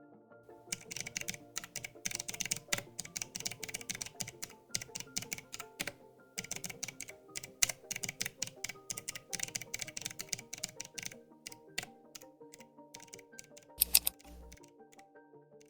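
Fast typing on a mechanical keyboard: a rapid, uneven run of key clicks with a brief pause partway, thinning out near the end, where a couple of heavier key strikes stand out, over background music.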